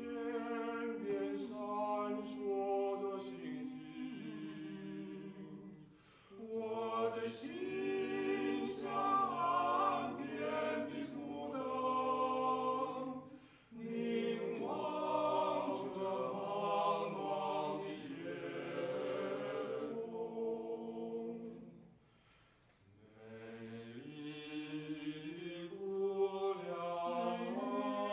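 Male vocal quartet singing a cappella in harmony, in long phrases with brief breaks between them: about 6 seconds in, again around 13 seconds, and a longer pause around 22 seconds.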